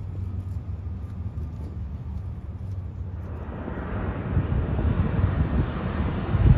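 A low, steady rumble, then about three seconds in an abrupt change to the louder jet engine noise of a Boeing KC-46A tanker on approach, a rushing roar with uneven low surges.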